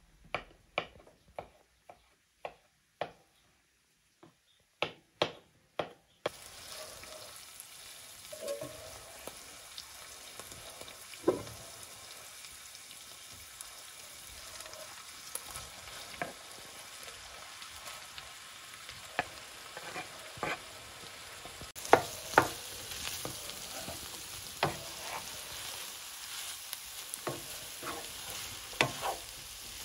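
A knife cutting mushrooms on a wooden board, a few separate sharp chops. Then, from about six seconds in, diced chicken sizzling in oil in a frying pan, a steady hiss with a wooden spatula knocking and scraping as it stirs. Later the pan holds sliced mushrooms too, and the knocks get louder.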